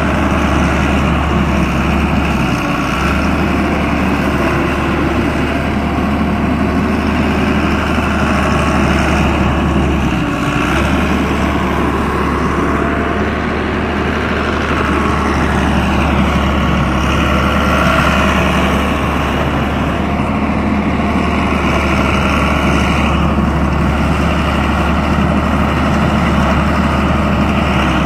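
Diesel engine of a Doosan D140W wheeled excavator running steadily with a deep, constant hum. About halfway through, a higher whine slides down and back up in pitch.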